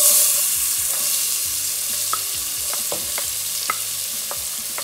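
Chopped onions hitting hot oil and frying with a sizzle that starts at once, loudest at first and easing slightly. A wooden spatula scraping them off a plate into the pot adds scattered light taps.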